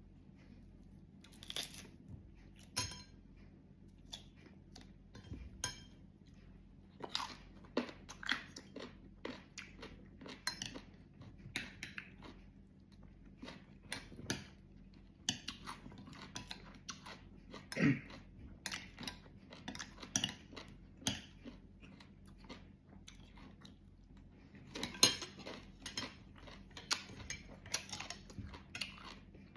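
A person biting into and chewing crunchy mango slices with fish bagoong: irregular wet crunches and chewing, with occasional louder bites, the loudest about 25 seconds in.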